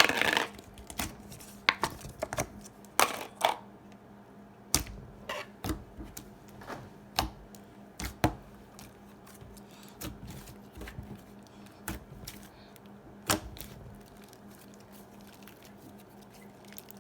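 Foam-bead slime, a little stiff from the cold, being squeezed and worked by hand, giving irregular sharp clicks and pops. A faint steady hum runs underneath.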